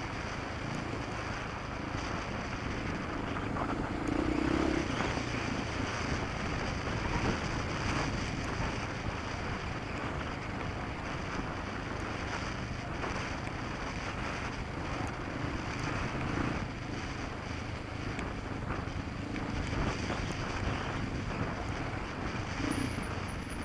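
Steady wind rush on the microphone and rumble from a vehicle moving along a rough gravel dirt track, with a few louder swells.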